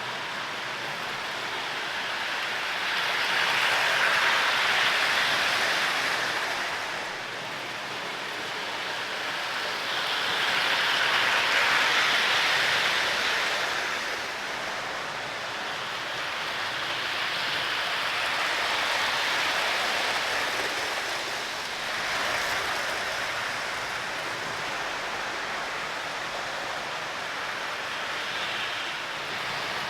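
O gauge model train running on its track, its wheels rattling and humming along the rails, growing louder and fading several times as it passes near and goes around the layout.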